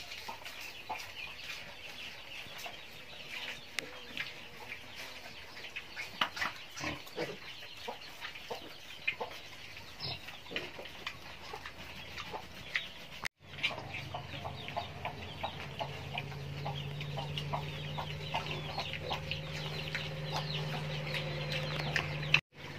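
Wild boar piglets and a sow rooting and chewing food on a dirt floor, giving many small crunches and clicks, with chickens clucking. About halfway through, after a brief break in the sound, a steady low hum joins in.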